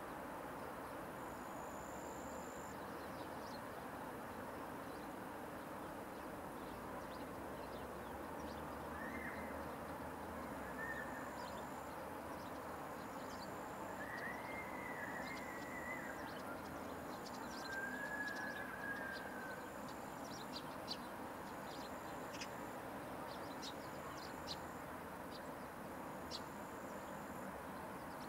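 Outdoor ambience with a steady background hiss, over which an insect's high, thin buzz repeats in pulses about a second long with short gaps. A few faint bird chirps come in briefly in the middle.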